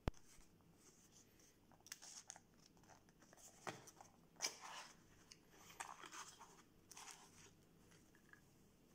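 Small cardboard box being opened by hand: scattered faint rustles, scrapes and taps of the cardboard flaps, then a cloth pouch being handled. A sharp tap right at the start is the loudest sound.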